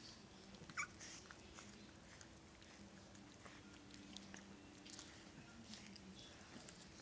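Near silence with a puppy's faint small scuffs and clicks, and one short high squeak about a second in. A faint steady low hum sits underneath.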